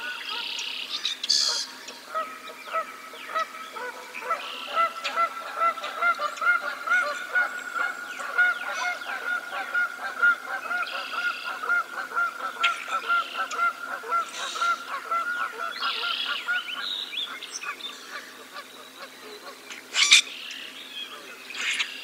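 Geese honking in a long, steady run of calls, about two or three a second, with songbirds chirping and trilling around them. A short, sharp sound near the end is the loudest moment.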